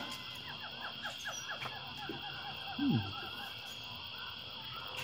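Animals calling outdoors: a steady high trilling chorus with a rapid run of short repeated chirps in the first half, and a single short low call falling in pitch about three seconds in.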